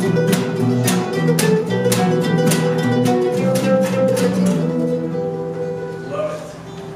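An acoustic guitar strummed with an acoustic bass guitar playing along in a duo. The strumming stops about two-thirds of the way in, and the last notes ring out and fade.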